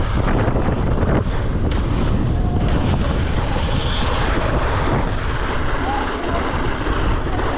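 Loud, steady wind buffeting on a chest-mounted camera's microphone during a fast mountain-bike descent down a snow slope.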